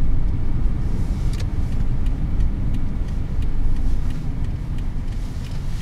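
Inside a moving Toyota car on a snowy road: a steady low rumble of the engine and tyres, with faint regular ticks about every two-thirds of a second.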